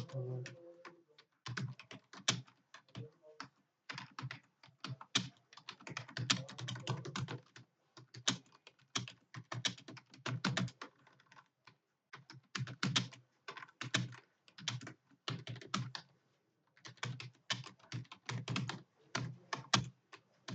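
Computer keyboard being typed on quickly: rapid runs of keystroke clicks with brief pauses between bursts.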